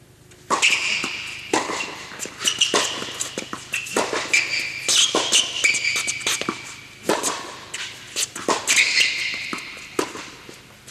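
Tennis rally on an indoor hard court: repeated sharp pops of the ball off racket strings and bounces on the court, mixed with high sneaker squeaks on the court surface. It starts suddenly about half a second in.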